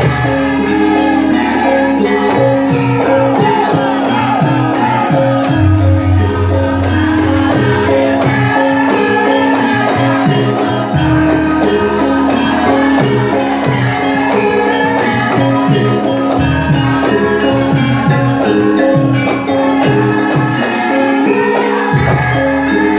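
Music with jingling, tambourine-like percussion over a deep bass note that changes every five or six seconds.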